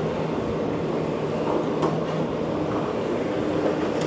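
Diesel engine of a Komatsu PC360 hydraulic excavator running with a steady drone while it works on the demolition, with a couple of faint knocks about a second and a half in.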